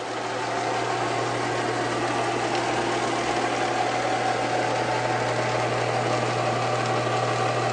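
Homemade wooden 6x48-inch belt sander running idle with no workpiece: a steady electric-motor hum under the even rushing of the sanding belt over its rollers, rising a little in the first second and then holding level.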